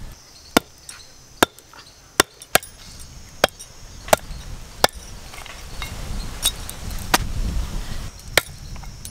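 Heavy kathari cleaver chopping through goat meat and bone on a wooden stump block: about ten sharp chops, roughly one every three-quarters of a second.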